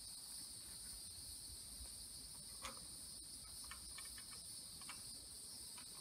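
Steady high-pitched insect chorus. A few faint clicks around the middle come from bare copper ground wire being handled at a plastic electrical box.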